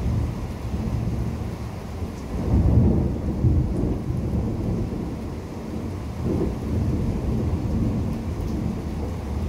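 Thunder rumbling low and continuously in a severe thunderstorm, swelling to its loudest about three seconds in, with rain falling.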